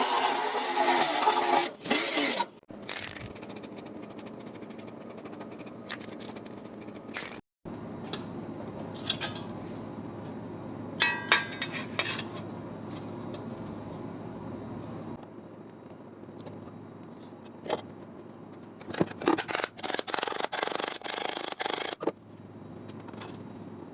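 Sheet-steel bodywork on a car's tunnel panel: scraping and rasping against metal, with scattered taps and clicks. The sound runs in several separate stretches with abrupt breaks; the first couple of seconds are the loudest.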